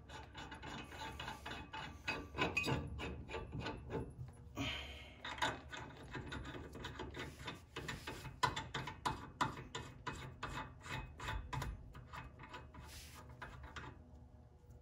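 Lug nuts being spun by hand onto the wheel studs of a front disc brake hub: irregular runs of light metallic clicking and rasping as the threads turn.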